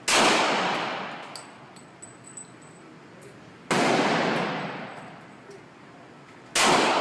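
Three slow, single shots from a Glock 35 pistol in .40 S&W, each a sharp crack that rings away over about a second, spaced about three seconds apart.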